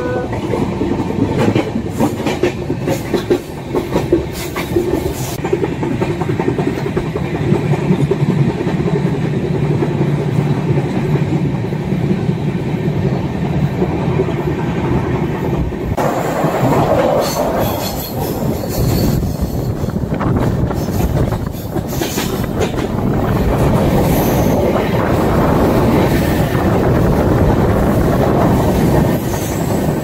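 Passenger train coaches running at speed, heard from an open door: a steady rumble of wheels on the track with a clickety-clack over the rail joints. About halfway through the sound turns harsher and brighter, with more hiss and ringing, as the train runs into a tunnel.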